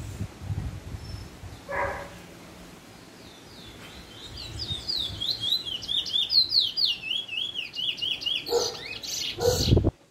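Young male chestnut-bellied seed finch (Trinidad 'bullfinch') in its first black plumage singing a fast warbling run of slurred whistled notes, starting about four seconds in and lasting about four seconds, as it comes into song. Near the end there are two loud, rough noises.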